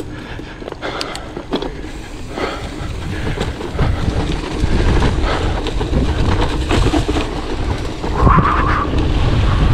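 Mountain bike rolling along a dirt trail: the rumble of tyres and wind on the microphone, growing louder about four seconds in as speed builds, with scattered clicks and rattles.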